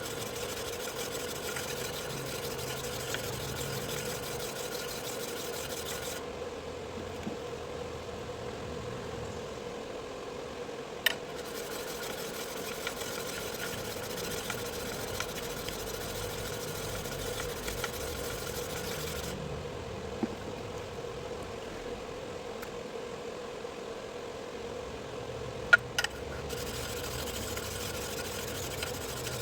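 Electric motor of a sharpening machine running steadily with a constant hum, broken by a few sharp clicks about eleven seconds in and twice close together near the end.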